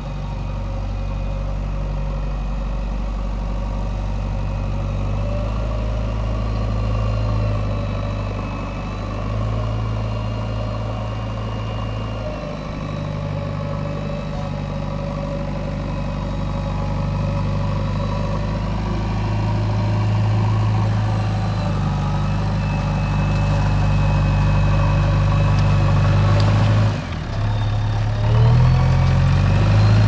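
JCB 3DX backhoe loader's diesel engine running steadily under throttle, its note stepping up and down as it moves. Near the end the note dips briefly, then rises and wavers as the machine works the loaded front bucket.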